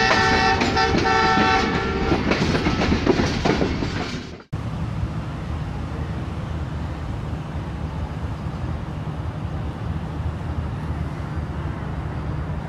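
An intro sound with a horn-like chord sounding in short repeated blasts over clatter, cutting off sharply about four seconds in. After it comes a steady low rumble of background noise.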